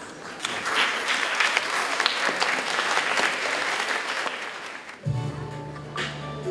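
Audience clapping for about four and a half seconds, then instrumental music starting about five seconds in with a held low note and higher notes above it: the opening of the children's song accompaniment.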